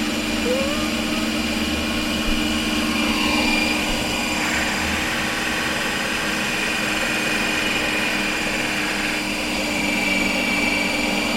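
Ninja Creami ice cream maker running, its motor driving the blade through a frozen pint with a steady whine that shifts in pitch a couple of times as it works.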